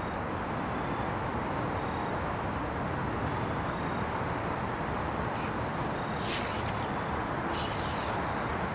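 A steady rushing background noise, with a few brief high hissing sounds about six and seven and a half seconds in.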